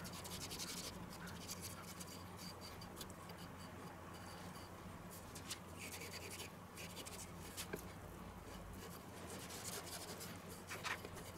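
Kitchen knife slicing through raw pork neck and scraping on a wooden cutting board: faint, scratchy cutting strokes with a few light taps.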